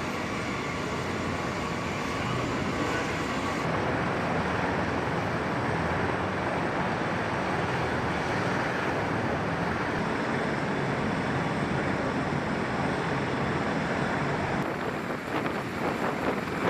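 Steady noise of a military aircraft in flight during aerial refueling. Near the end, uneven gusts of wind buffet the microphone.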